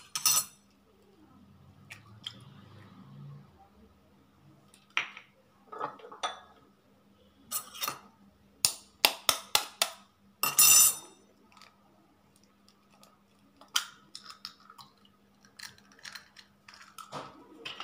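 Steel spoon tapping raw eggshells to crack them, and shells breaking open over a ceramic bowl: short sharp clicks in small clusters, the densest run about eight to eleven seconds in.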